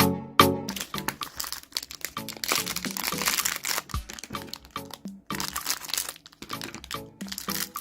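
Plastic toy packaging being handled and opened, with crackling heaviest in the middle, over background music.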